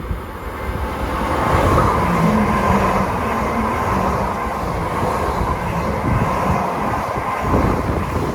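Train passing close by on the tracks: a loud, steady rumble and rush of wheels on rail, with a brief low whine about two seconds in.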